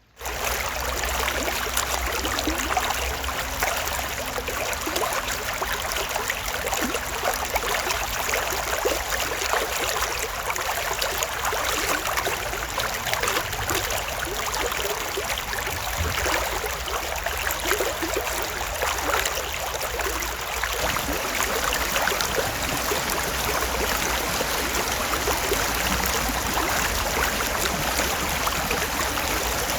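Stream water flowing steadily over a shallow bed, an even rushing with small splashes throughout.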